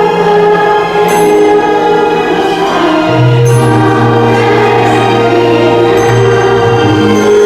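Choir singing long held notes over a low instrumental bass line.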